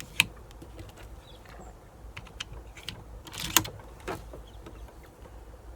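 Air rifle clicks, then a sharp shot about three and a half seconds in, followed about half a second later by a knock as the pellet hits a knock-down rat target.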